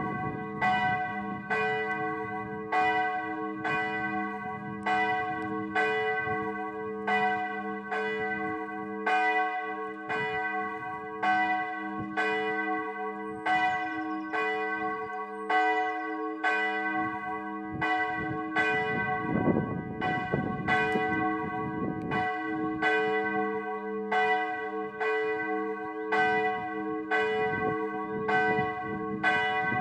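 Church bell in a wooden bell tower ringing in a steady, even rhythm, each stroke's ring carrying on under the next. A brief low rumble comes in about two-thirds of the way through.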